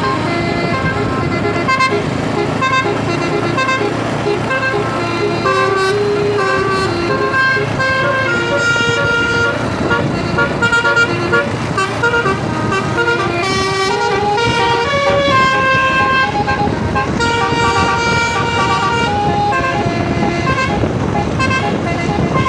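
Tour bus's telolet basuri horn, a set of multi-tone air-horn trumpets, playing a melody of held notes that step up and down, over the bus's running engine.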